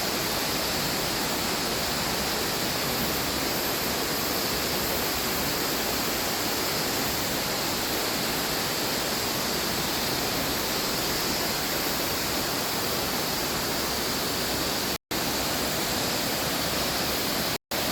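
Steady rushing of a waterfall, an even roar of falling water. It cuts out very briefly twice near the end.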